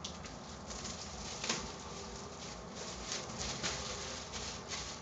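Plastic shrink wrap crinkling and rustling as it is peeled off a product box and crumpled, in a run of irregular crackles.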